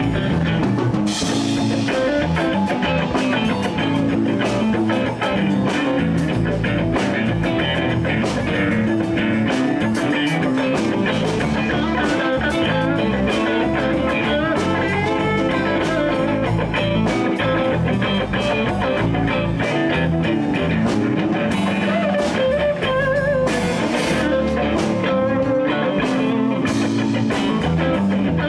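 Live blues band playing without vocals: an electric guitar solo, called for on the Telecaster, over bass and a drum kit keeping a steady beat.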